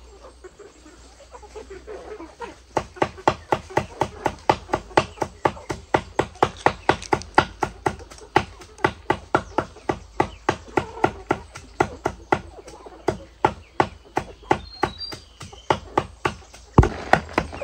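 Steady, rapid chopping with a knife, about three strikes a second, starting a few seconds in.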